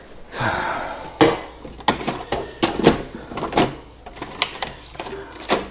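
Rummaging through tools and small objects on a desk: a string of irregular clinks, clatters and knocks as things are picked up, moved and set down.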